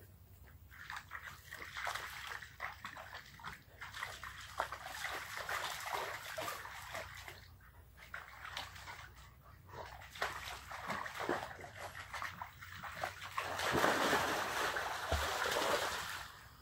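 Dogs wading and splashing in a shallow pond: irregular sloshing and splashing of water, becoming louder and continuous over the last few seconds as one dog plunges in and swims.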